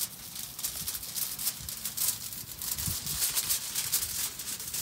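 Dry paintbrush scrubbing back and forth over kitchen tin foil pressed onto a headstone: a quick, repeated scratchy rustle of bristles on foil, brought up to read the carved inscription.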